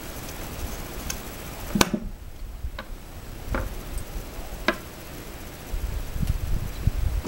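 Sharp clicks and knocks from a hand-operated shotgun shell reloading tool and plastic shell cases being handled, about six separate clicks with the loudest a little under two seconds in, and duller thumps near the end.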